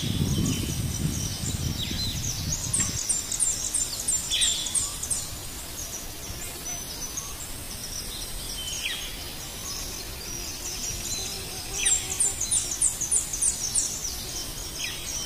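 Birds calling: two runs of quick, high, repeated chirps, one near the start and one about twelve seconds in, with scattered short falling calls between. A low rumble sounds during the first three seconds.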